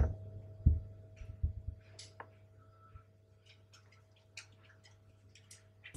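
A soft thump about a second in, then scattered light clicks and taps over a steady low hum.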